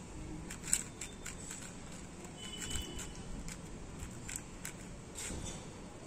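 Plastic 4x4 Rubik's cube clicking as its layers are twisted by hand: short, irregular clicks a few times a second over a steady low background noise, one sharper click about a second in.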